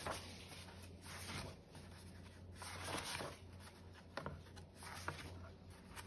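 Soft rustling and light taps of paperback picture books being handled and their pages turned, coming in short swishes every second or so.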